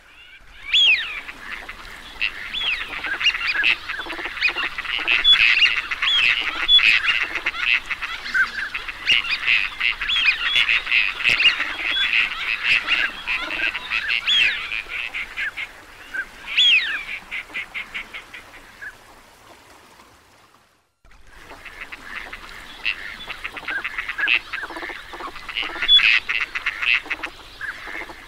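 A flock of teal ducks calling: a dense chatter of short, high calls, with a quick run of rapid calls about two-thirds of the way through. The calling fades to a brief silence about three-quarters of the way through, then starts again.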